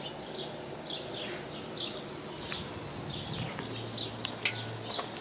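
Small birds chirping over and over in short high notes, with a low steady hum coming in about two thirds of the way through and a single sharp click near the end.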